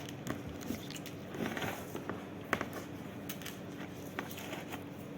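Scattered clicks and snips of a crimping tool and a stiff Cat 6 LAN cable being handled and cut to length, the sharpest click about two and a half seconds in, over a faint steady hum.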